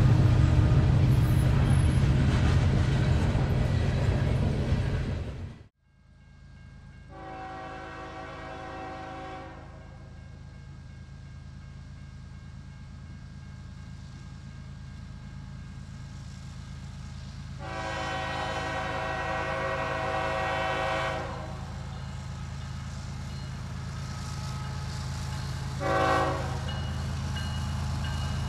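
A loud steady rumble cuts off suddenly about six seconds in. Norfolk Southern diesel locomotives then approach with a low steady engine drone, and the lead unit's multi-chime air horn sounds two long blasts and a short one, the grade-crossing signal.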